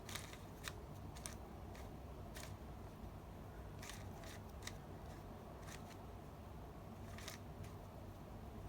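Irregular sharp clicks and snaps from small hard plastic being handled during a Rubik's cube unboxing, about a dozen spread over several seconds, over a steady low hum.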